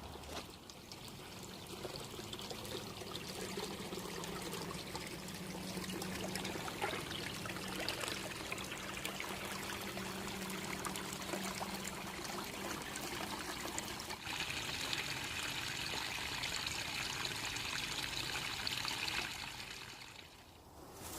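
Running water trickling steadily. About two-thirds of the way through the sound changes to a brighter, hissier flow, and it fades out near the end.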